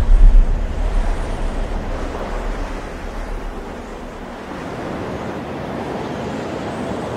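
Wind buffeting the microphone in a heavy low rumble that is strongest in the first couple of seconds and eases off, over a steady wash of surf.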